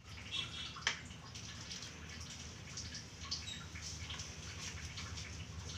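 Water splashing and dripping as a wet Lhasa Apso is doused and rubbed down by hand during a bath, with one sharp knock about a second in.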